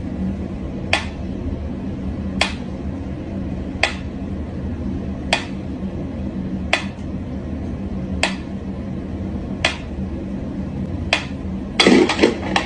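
Mechanical pendulum metronome ticking slowly, one sharp tick about every one and a half seconds, over a steady low hum. Near the end a short burst of louder scuffling noise comes as a cat leaps at it.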